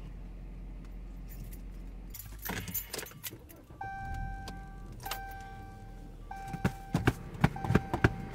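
A car key ring jangling and clicking against the ignition area and steering column, loudest and busiest in the last couple of seconds. Over it, the car's dashboard warning chime sounds repeatedly, about once a second, as the ignition is switched on.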